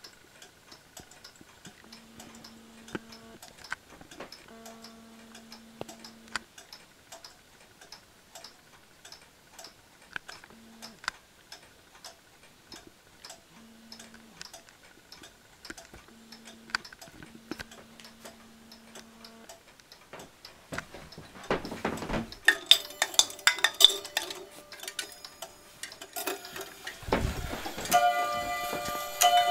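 Mechanical pendulum clocks ticking steadily. About two-thirds of the way in, louder strikes begin, and near the end a clock's bells or chimes ring out in sustained, overlapping tones.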